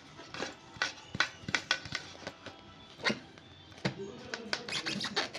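Irregular clicks and knocks of pressure-washer accessories and packaging being handled, coming faster toward the end.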